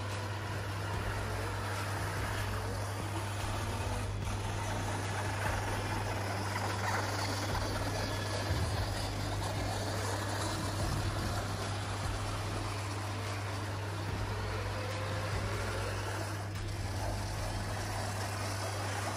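Traxxas TRX-6 Mercedes-Benz G63 6x6 RC crawler driving on a hard stone floor: the steady whir of its electric motor and gears, rising and falling a little in pitch with the throttle, over a constant low hum.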